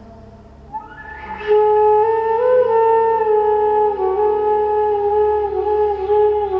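Crystal flute playing a slow, sustained melody. The flute comes in about a second in and holds long notes with small steps in pitch, over a soft steady drone.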